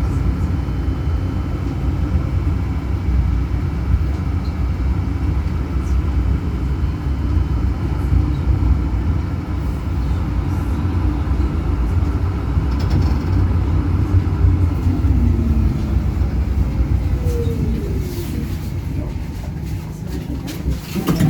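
Zürich tram running along its line, heard from the driver's cab: a steady low rumble of wheels and running gear. Late on, a faint motor whine falls in pitch a couple of times, and a short sharp knock comes at the very end.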